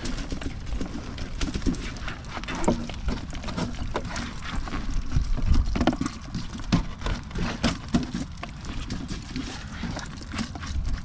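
Irregular taps, drips and splashes of water, with wind rumbling on the microphone.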